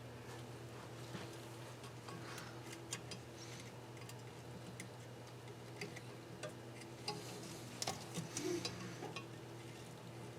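Light metallic clicks and taps of small steel parts and hand tools being handled while a cylinder head's valve springs and keepers are assembled, with a quick flurry of clicks near the end, over a steady low hum.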